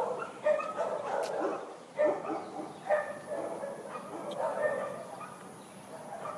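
A dog giving repeated short whining yips, one starting about every second.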